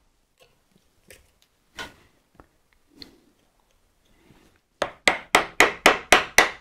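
Wood chisel being driven into wood by a quick run of mallet blows, about eight strikes at about four a second, starting near the end, chopping waste out of a joint. Before that there are only a few faint knocks and taps.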